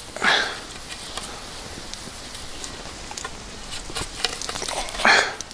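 Nylon paracord being wrapped around and pulled through a bundle of three short wooden sticks for a tripod lashing: two brief swishes of cord, one just after the start and one near the end, with faint handling clicks between.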